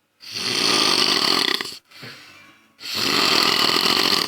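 A man snoring loudly: two long snores, each about a second and a half, with a short, quieter breath between them.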